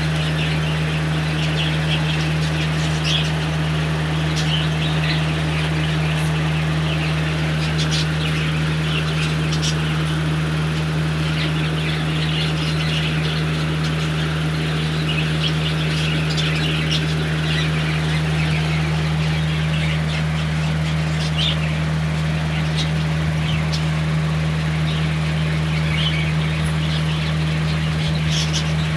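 Steady low mechanical hum at a constant pitch, with short high chirps scattered over it.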